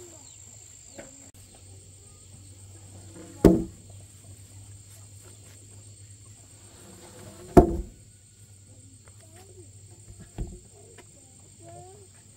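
Heavy squared wooden beams being set down on one another: two loud wooden thuds about four seconds apart, then a lighter knock. Insects buzzing steadily at a high pitch underneath.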